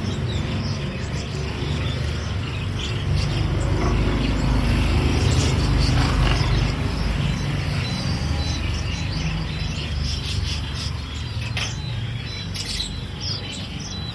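Caged songbirds chirping and tweeting in short scattered calls over a steady low rumble.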